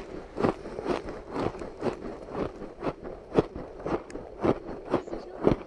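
Close-miked biting and chewing of crushed ice and powdery frost ice: a crisp crunch about twice a second, the loudest about three and a half seconds in and again near the end.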